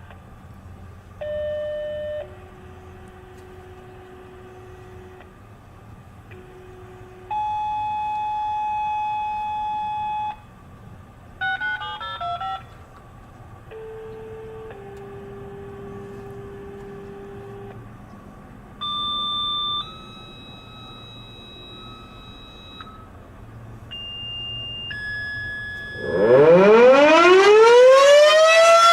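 A sequence of steady electronic alert tones, mostly in pairs of a short tone followed by a longer one at a different pitch, with a brief burst of mixed touch-tone-like beeps near the middle. Near the end the Federal Model 5 mechanical fire siren starts up, winding up loudly with its pitch climbing steeply.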